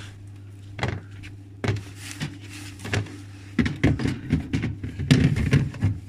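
Clear plastic freezer drawers and shelves of a new Haier refrigerator being handled. A few separate knocks come first, then a busier stretch of plastic clattering and rustling in the second half, over a steady low hum.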